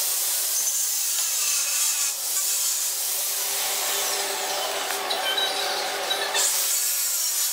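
Bench drill press running with a small twist drill cutting into a brass block. A steady motor hum sits under a hissing cutting noise, which swells and eases a few times as the bit is fed into the metal.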